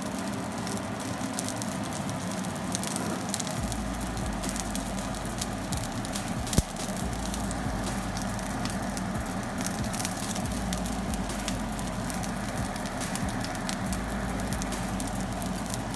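A5 Wagyu strip steak searing in a hot cast-iron skillet, its rendering fat sizzling and crackling steadily, with one sharp pop about six and a half seconds in.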